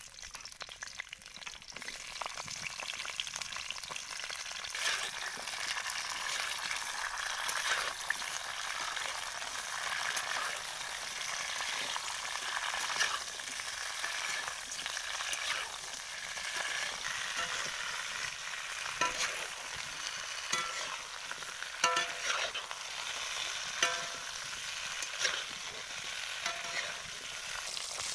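Flat beans frying in hot mustard oil in a wok, a steady sizzle. A metal spatula stirs them, clinking and scraping against the pan several times, most in the second half.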